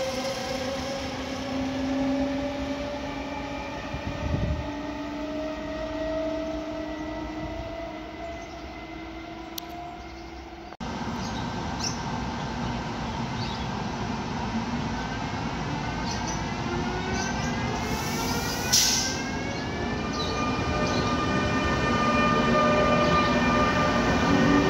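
Electric train locomotives' traction drives whining. First an E.464 moving off with its regional train, a whine of several tones that fades. After a sudden cut, an E.402B with Intercity coaches accelerating past close by, a chorus of whine tones rising in pitch, with a brief hiss partway through.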